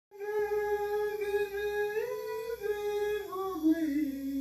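A voice humming a slow wordless melody in long held notes: it steps up once about two seconds in, then falls in steps to a lower note near the end.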